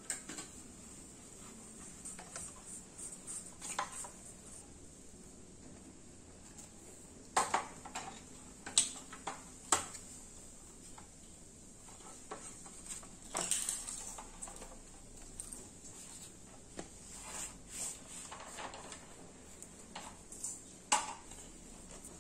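Intermittent clicks and clattering knocks of hard objects being handled, with a few louder knocks in the middle and near the end.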